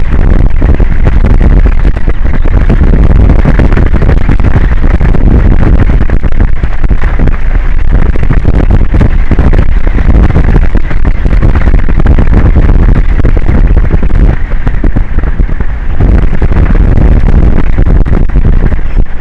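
Loud, continuous wind buffeting an exposed outdoor microphone over the open sea: a rumbling, distorted rush, heaviest in the deep lows, with a brief lull near the end.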